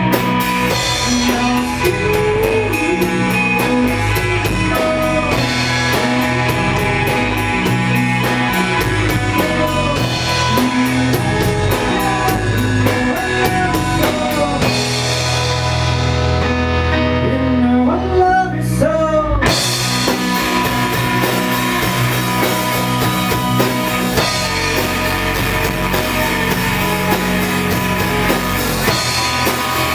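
Rock song with singing, guitar and drums. Just past the halfway point the treble fades out for a few seconds, then the full band comes back suddenly.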